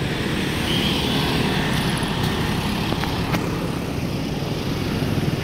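Street traffic: a car driving past and motorbike engines running, a steady low engine rumble with a few faint clicks in the middle.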